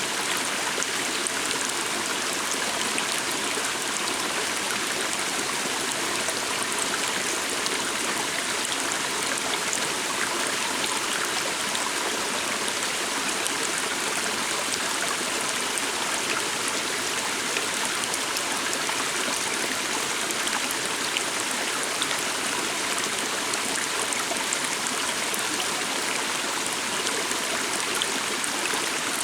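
Water stream flowing steadily with a continuous, even rush.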